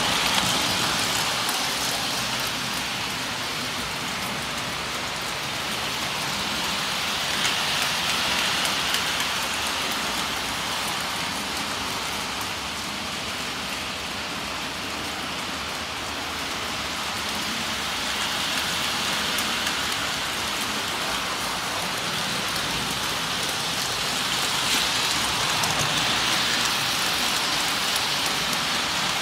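Standard Gauge tinplate toy trains, among them an Ives 3243 set, running on three-rail metal track: a steady rushing rumble of wheels and motor that swells several times as a train passes close by.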